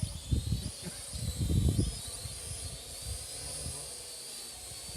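Parrot AR.Drone 2.0 quadcopter's electric motors and propellers whining at a high pitch that wavers up and down as it flies. Wind gusts buffet the microphone with low rumbles about half a second and a second and a half in.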